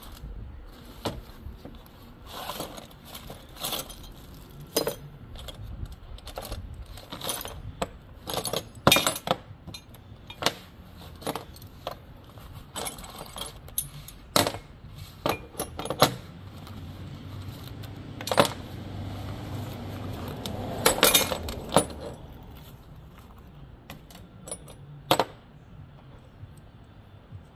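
Irregular clicks, knocks and clinks of parts being handled during assembly of a wheeled strimmer, with a busier clattering stretch about twenty seconds in.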